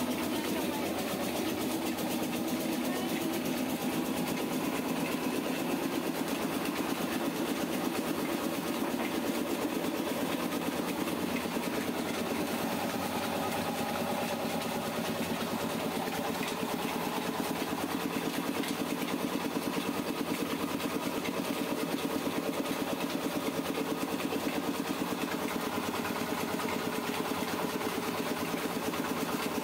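Small stationary engine running steadily, driving a rice huller by a flat belt, with the huller grinding paddy as it is fed in through the hopper.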